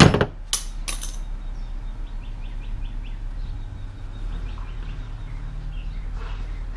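Hand-tool work on a plastic intake charge pipe: a few sharp clicks and knocks in the first second as a thread tap is backed out of the pipe. A run of faint short chirps follows about two seconds in, over a steady low hum.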